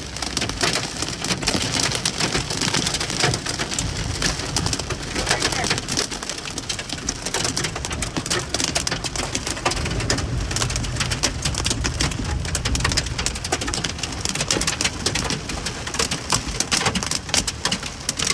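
Hail and heavy rain drumming on a car's roof and windshield, heard from inside the cabin: a dense, unbroken clatter of small hits, with a low rumble of the moving car underneath.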